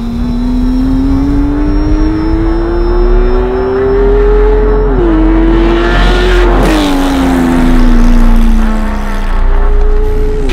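Porsche 991.1 GT3's 3.8-litre flat-six through a Fi Exhaust titanium catback, accelerating with the engine pitch climbing steadily for about five seconds before dropping sharply at an upshift. The pitch then falls away as the car comes off the throttle, with another sudden drop at a shift near the end.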